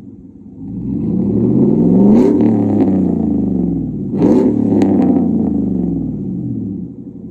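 2014 Chevrolet Silverado's 6.2-litre V8 through a straight-piped exhaust with no muffler or resonator, revved twice from idle with the truck standing still. The first rev climbs and falls over about three seconds; the second is a sharper blip about four seconds in. A few sharp crackles come as the revs drop, and it settles back to idle near the end.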